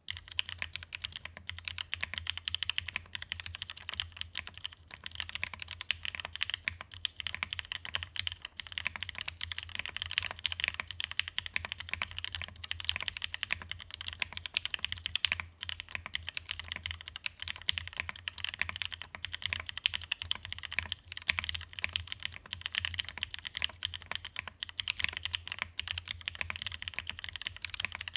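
Fast, continuous typing on a plateless Geonworks F1-8X mechanical keyboard with lubed, filmed Zeal Tealios linear switches in Cherry top housings and GMK keycaps: a dense, steady stream of key strikes.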